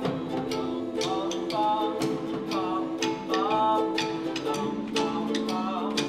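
Music: steady held low notes under a melodic line that bends in pitch, with short sharp strikes about twice a second.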